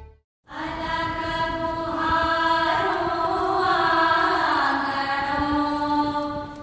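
Recorded music: the previous song cuts off into a moment of silence, then chant-like singing begins, holding long sustained notes that step slowly in pitch.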